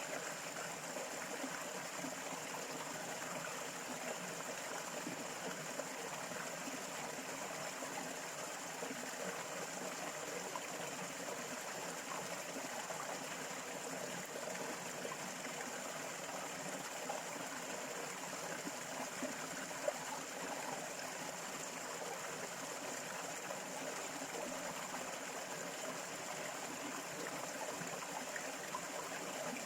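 Water running steadily in a stream, an even trickling rush, with a steady high thin tone above it and one brief click about two-thirds through.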